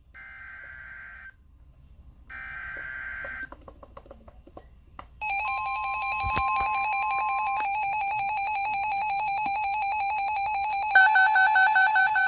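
Emergency Alert System tones on NOAA Weather Radio, announcing a severe thunderstorm warning. First come two short bursts of the digital SAME header data. Then a steady alert tone plays together with a rapidly pulsing electronic alarm, which changes to a louder, different pattern about 11 seconds in.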